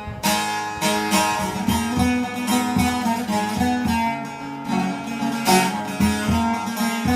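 Kurdish folk music: a plucked string instrument playing a quick melody over repeated strummed strokes.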